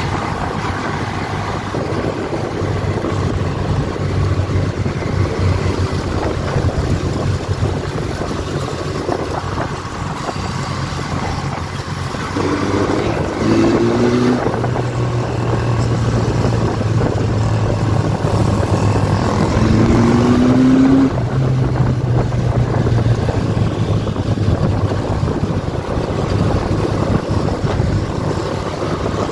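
MRT Vintage 400 motorcycle engine running under way, with wind noise on the microphone. The engine note steps in pitch a few times, with short rising revs about halfway through and again about two-thirds of the way in.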